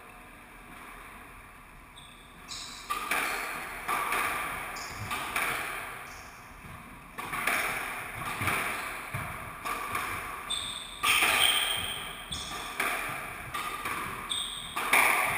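Squash rally: the ball cracking off rackets and the court walls, each hit echoing in the enclosed court, with shoes squeaking on the wooden floor. Quiet for the first couple of seconds, then hits come every half second to a second.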